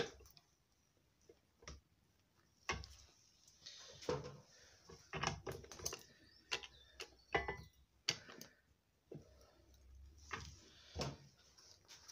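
Irregular clicks and knocks of a steel motorcycle swinging arm, a BSA Bantam D7's, being handled and turned around, with a few brief metallic rings.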